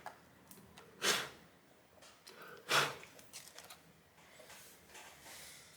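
Two short, sharp breaths out through the nose, about a second in and again near the three-second mark, over faint small handling clicks.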